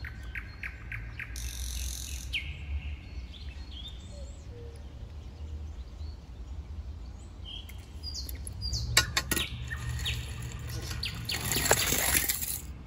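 Birds chirping and calling in short high notes over a low background rumble, with a few sharp clicks about nine seconds in. Near the end comes a brief hiss as the die-cast toy car rolls down the plastic track.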